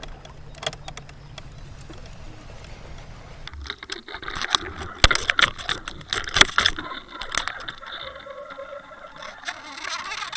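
Spinning fishing reel clicking and rattling in quick runs while a hooked striped bass is played, the clicking thick and loudest in the middle with two sharp louder clacks.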